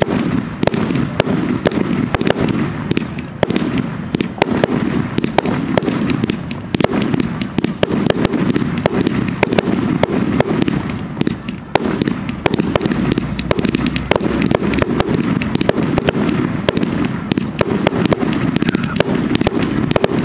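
Fireworks display: rapid, overlapping sharp cracks and crackles, many a second, over a continuous rolling rumble of booms.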